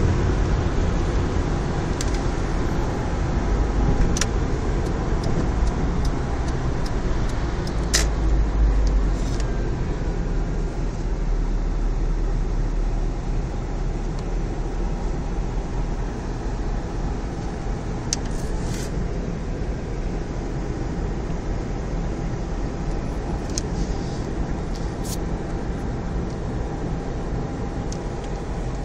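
Car road noise heard from inside the cabin: a steady low rumble of tyres and engine at motorway speed that eases a little about halfway through as the car slows onto a curving exit ramp. A few scattered sharp clicks sound over it.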